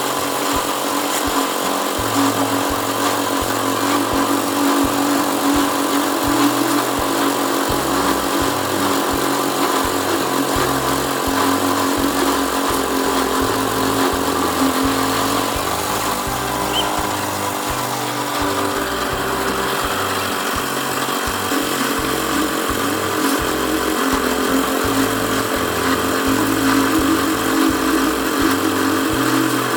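A small engine running steadily, its pitch sagging briefly about halfway through and then recovering.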